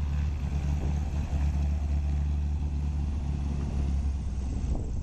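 Small aerobatic airplane's piston engine running steadily, a constant deep drone.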